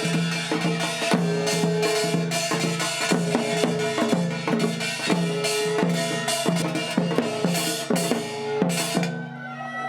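Drum-led music with rapid, steady strokes over a held low tone; it thins out and drops in level near the end.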